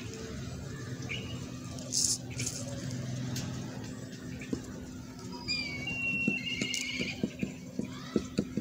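Small scratches and light taps of a matchstick packing crushed match-head powder into a padlock's keyhole, with a quick run of small clicks in the second half. A bird chirps briefly midway, over a steady low hum.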